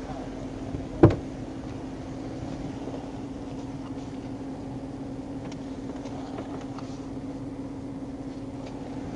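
Steady low hum of an idling vehicle engine, with one sharp click about a second in.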